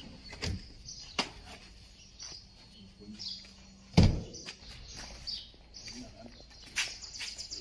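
Small birds chirping, with a fast high trill near the end. Scattered light knocks and one loud, deep thump about four seconds in.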